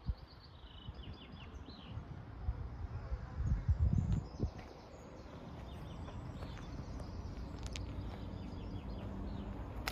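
Outdoor ambience: small birds chirping over a low rumble of wind on the microphone, with a few dull low thumps about three and a half to four and a half seconds in, and a steadier low drone in the second half.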